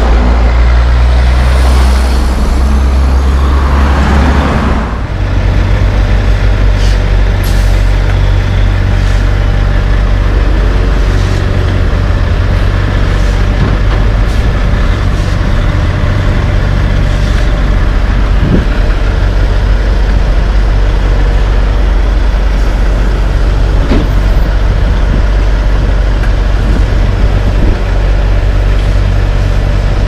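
Heavy diesel dump truck's engine running, a deep steady drone. Passing road traffic is mixed in for the first few seconds, until the sound changes abruptly about five seconds in.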